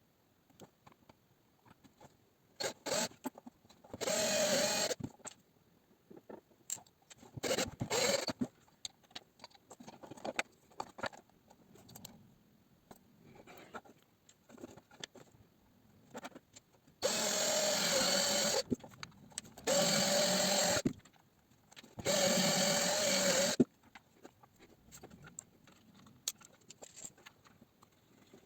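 A small electric motor running in short bursts, with a steady whine: one burst about four seconds in, a brief one near eight seconds, then three bursts of one to two seconds near the end. Scattered clicks and knocks fall between the bursts.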